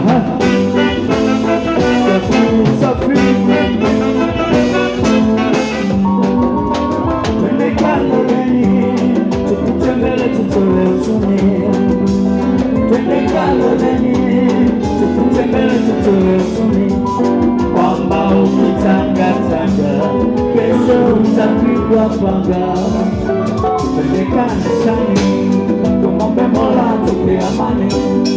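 Live band playing with saxophones, electric guitar and keyboard, and a man singing over them.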